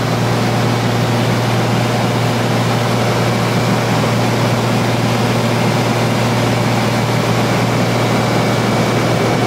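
Light aircraft's piston engine and propeller droning steadily in cruise flight, heard from inside the cabin, with a constant low hum.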